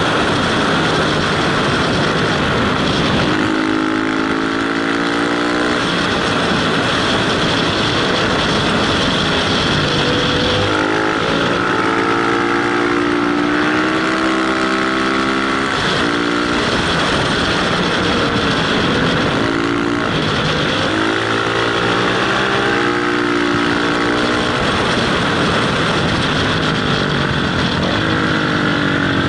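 Motorcycle engine under way, repeatedly rising in pitch as it accelerates through the gears and dropping back between shifts, over steady wind rush at the helmet.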